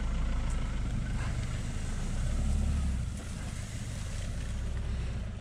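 Pickup truck engine running as the truck drives off over grass. The low rumble swells a little, then drops off after about three seconds as it pulls away.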